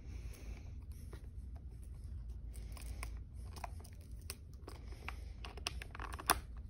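Plastic chin strap buckles and strap being handled against a football helmet: rustling and scraping with scattered small clicks, and one sharper click near the end as a buckle goes onto the strap.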